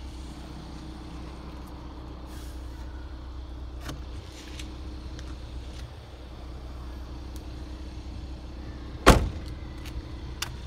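The rear hatch of a Hyundai Kona shutting with one loud thud about nine seconds in, over a steady low hum. There are a few lighter clicks and knocks before it and a sharp click near the end.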